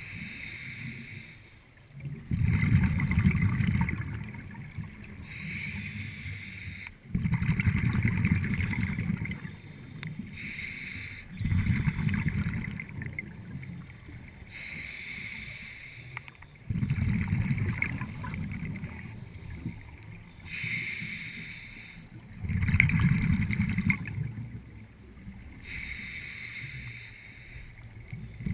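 A scuba diver breathing through a regulator, heard underwater: a hissing inhale followed each time by a louder burst of bubbling exhaust bubbles, repeating about every four to five seconds.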